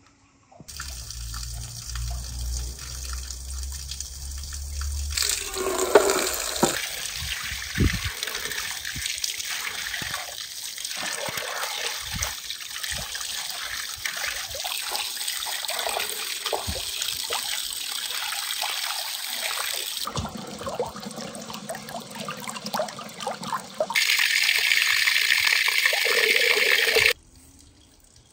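Water pouring and splashing over a lump of raw meat being rinsed by hand above a metal colander, irregular and spattering. Near the end a louder, steady pour runs for about three seconds and cuts off suddenly. A low hum sits under the first few seconds.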